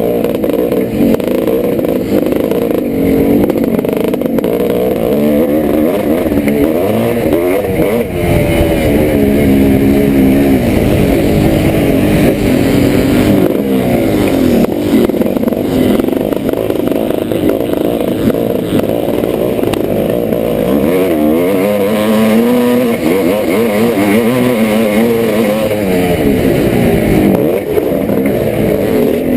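Yamaha YZ490's two-stroke single-cylinder engine racing on a motocross track, its pitch climbing and dropping over and over as the throttle is opened and shut.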